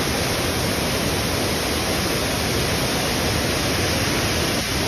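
Steady rush of a wide waterfall pouring over a rock ledge, heard close to the falls.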